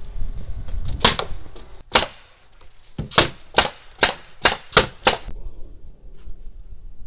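Pneumatic framing nailer firing nails into lumber: a pair of sharp shots, a single one, then a quick run of six about every half second.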